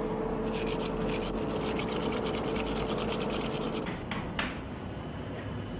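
Cowrie shells rattled in the hands for Ifá divination, a fast, evenly repeated scratchy rattle that stops a little before four seconds in, over a steady hum.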